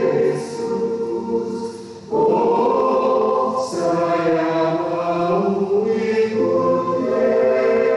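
Youth church choir, mostly young men's voices, singing a hymn in held chords. The sound thins and dips about two seconds in, then the choir comes back in together at full strength and moves through several chord changes.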